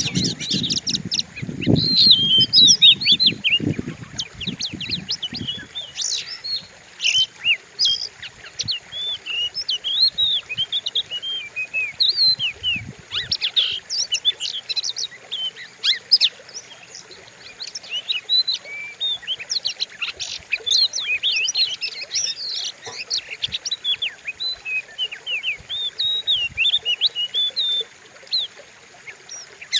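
Oriental magpie-robin (kacer) singing a fast, continuous, varied song of sharp whistles and chirps. This is a fierce lure song used to provoke other kacers. Low muffled thumps are heard during the first few seconds.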